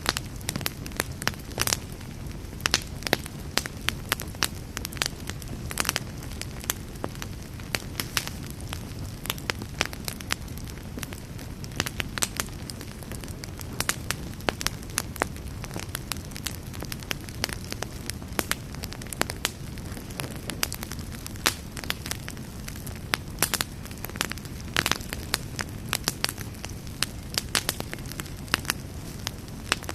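Campfire burning: a steady low noise of the flames under frequent sharp crackles and pops at irregular intervals, several a second.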